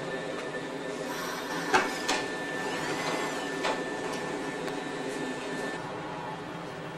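Steady hum of an electric commuter train and platform, with a thin high tone that stops about six seconds in. A few sharp knocks come through, the loudest about two seconds in.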